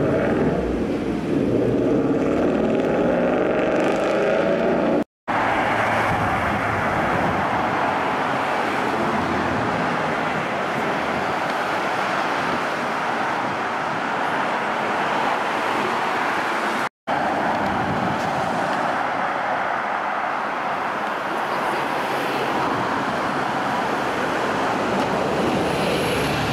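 A car engine accelerating, its pitch rising over the first few seconds, then a steady wash of city road traffic. The sound cuts out for a split second twice.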